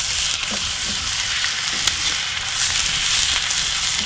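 Ground beef frying in a hot cast-iron skillet: a steady sizzling hiss, with a few light scrapes as a spatula breaks up the meat in the pan.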